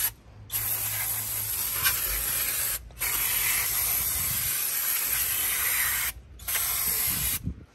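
Aerosol brake cleaner spraying in three long sprays, the middle one about three seconds, with short breaks between.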